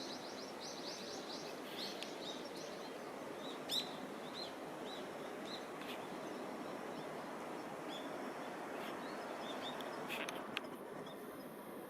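Small birds chirping outdoors: a quick run of high, repeated chirps at the start, then scattered single chirps, over a steady background of ambient outdoor noise. A few faint clicks come near the end.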